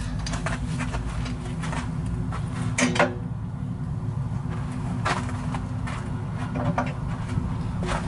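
Steady low background hum, with a few short knocks and clicks scattered through it.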